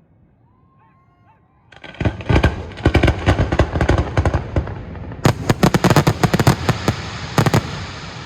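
Fireworks barrage: a rapid volley of many sharp bangs and crackles breaks out about two seconds in and keeps going until near the end, then fades into a rumble.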